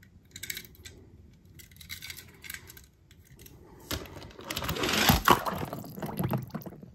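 Toy cars being stirred and pulled about in a plastic tub of yellow slime: wet squishing with small plastic clicks and clatters. The activity is loudest from about four to six and a half seconds in.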